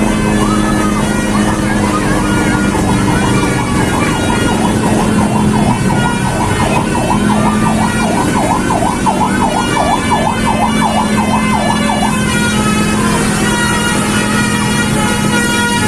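Basuri 'telolet' musical bus horn sounding a fast warbling wail that rises and falls about twice a second, over a steady low drone. Near the end it switches to a run of short, higher stepped notes.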